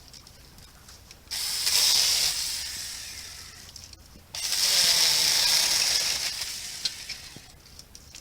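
Saker mini cordless electric chainsaw running in two bursts, each starting abruptly and dying away over two or three seconds.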